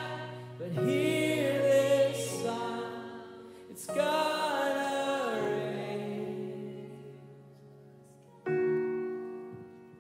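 Slow worship song: a male voice sings two drawn-out, gliding phrases over held keyboard chords. The chords fade, and a new chord rings alone about eight and a half seconds in.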